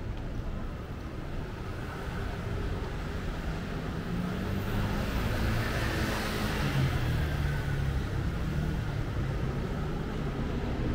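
Street traffic: a motor vehicle passes close by. Its engine hum and noise swell to a peak a little past the middle, then fade.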